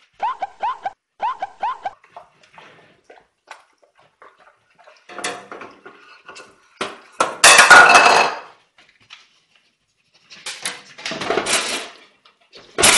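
A dog whining in a quick run of short high cries, then loud clattering and scratching as it paws at a stainless-steel appliance door, in two spells.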